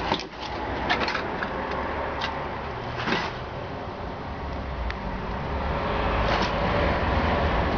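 Steady low rumble of background noise with a few faint clicks and knocks, growing a little louder near the end.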